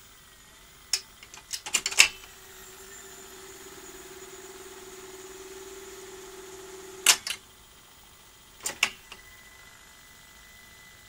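Clicks and clunks from a Philips N1700-type video recorder as its front controls are operated: a cluster about two seconds in, a loud one about seven seconds in and a pair near the end. Between the first two, the tape mechanism runs with a steady hum.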